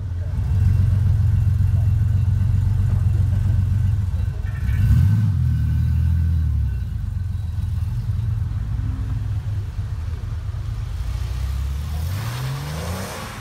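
Porsche 964's air-cooled flat-six running with a deep, low rumble as the car rolls by. It is blipped about five seconds in, then the pitch rises as it accelerates away and the sound fades near the end.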